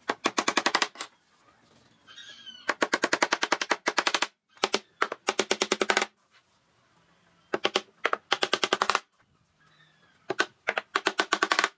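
Hammer blows on nails driven into pine boards, coming in several rapid bursts of about a dozen strikes a second with short pauses between.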